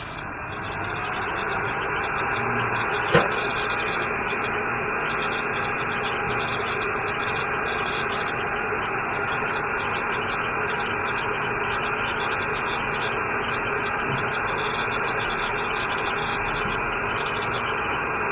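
Hot air rework station blowing steadily. It swells up to full flow over the first second or so, with a single sharp click about three seconds in.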